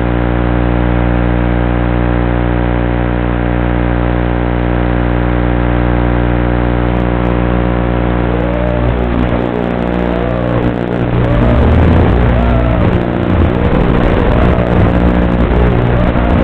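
FPV quadcopter's brushless motors and propellers. They hum steadily while the drone sits on the grass, then from about halfway come a series of rising-and-falling whines as the throttle is blipped. The sound gets louder as it lifts off.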